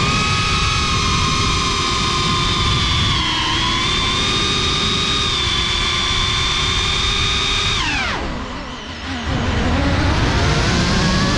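FPV quadcopter's brushless motors and propellers whining at a steady high pitch. About eight seconds in the pitch falls sharply and the sound dips as the throttle is cut, then the whine rises again as power comes back near the end.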